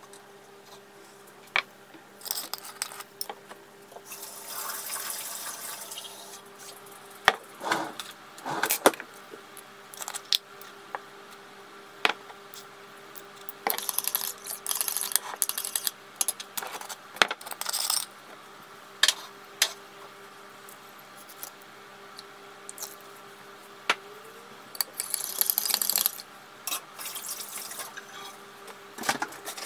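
Kitchen sounds of making instant coffee: many sharp clinks of a spoon, jar lids and a ceramic mug, with a few short rushes of water. A faint steady hum runs underneath.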